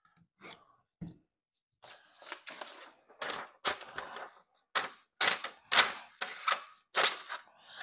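A knife blade slicing through a sheet of paper, heard as a quick, irregular run of scratchy cuts and paper rustles. The run starts about two seconds in and grows louder toward the end. This is a paper-cutting test of the edge after sharpening, and the edge is only a little sharper.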